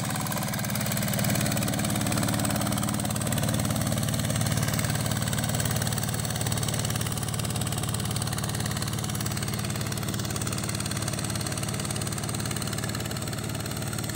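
The Kingston single-cylinder diesel engine of a hand tractor runs steadily under load as the tractor harrows a flooded rice paddy.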